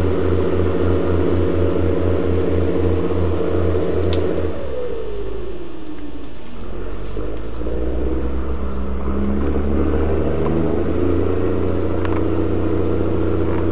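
Boat engine running with a steady, throbbing note. About four and a half seconds in its pitch slides down, and a lower, smoother engine drone takes over.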